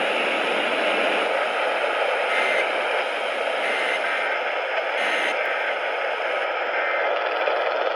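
Steady hiss of radio static.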